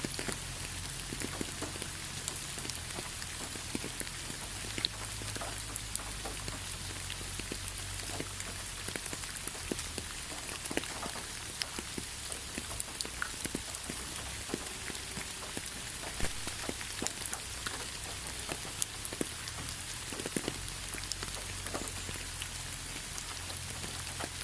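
Steady rain falling, with a constant hiss and many scattered individual drops pattering on surfaces.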